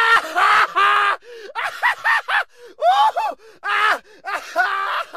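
A high-pitched voice making a string of short wordless cries, each rising and falling in pitch, in quick groups with brief gaps between them.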